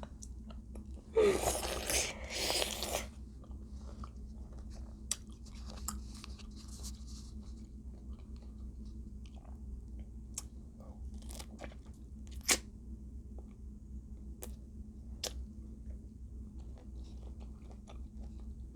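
Close-miked eating: a loud crunch of food being bitten and chewed about a second in, lasting a couple of seconds, then quieter chewing and mouth clicks with a few sharper clicks, over a steady low hum.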